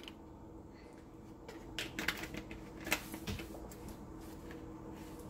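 Faint clicks and light taps as a cooking-oil bottle is handled and set down, several in quick succession between about one and a half and three seconds in, over a faint steady hum.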